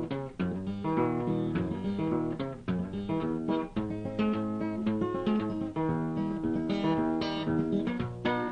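Background music: acoustic guitar strummed and picked, with no singing.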